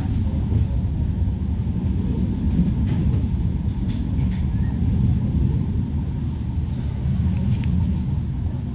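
Interior running noise of a Bombardier M5000 tram in motion: a steady low rumble from the wheels on the rails and the running gear, with a few light clicks near the middle.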